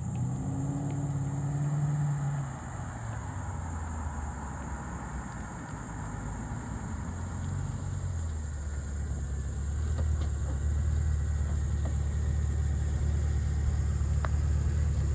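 Chevrolet Camaro SS V8 engine as the car drives up slowly and comes to a stop, then idles steadily with a low hum that grows louder in the second half.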